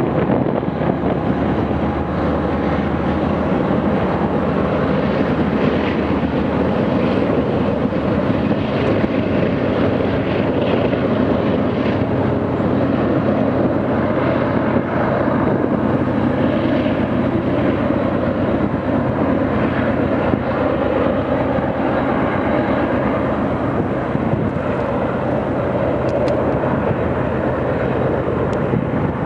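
Freight train passing: a steady drone of diesel locomotive engines over the continuous rumble of double-stack container cars on the rails.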